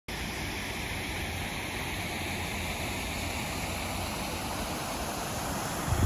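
Steady rush of running water from the Blaenhafren Falls waterfall and mountain stream on the upper River Severn.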